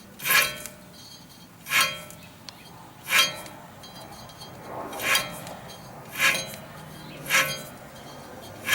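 A wire brush scrubbing rusty hub mounting bolts on a rear wheel hub, seven short scraping strokes about a second apart, each with a faint metallic clink. The bolts are being cleaned of rust and debris to get them ready to come off.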